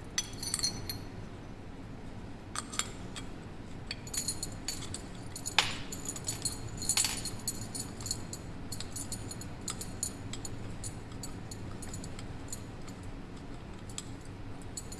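Small metal lock parts and keys clinking and jingling as they are handled, in scattered light clicks with a bright ring, busiest in the first half.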